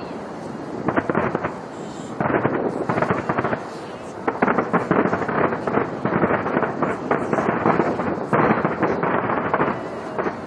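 Fireworks going off in rapid, dense volleys of crackling bursts, coming in clusters with brief lulls between them.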